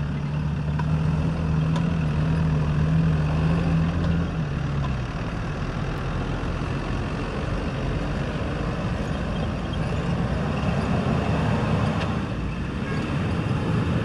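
Off-road 4x4 driving along a track: a steady engine note for the first five seconds or so, then the note drops away under a rough, even rumble of the drive.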